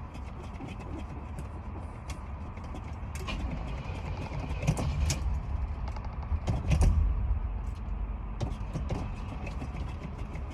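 Car engine on a hard start: a steady low rumble with scattered clicks, swelling louder for a few seconds in the middle.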